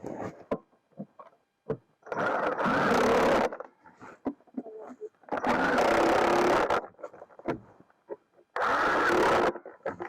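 Impact wrench run in three short bursts, about a second to a second and a half each, with small clicks and knocks between them.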